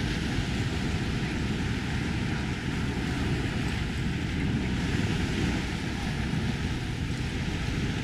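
Small surf breaking and washing up the beach, with wind rumbling on the microphone. It makes a steady, even rush of noise that is heaviest in the low end.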